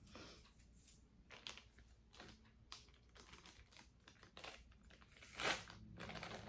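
Faint crinkling rustles and light clicks of costume jewelry being handled, with a louder rustle about five and a half seconds in.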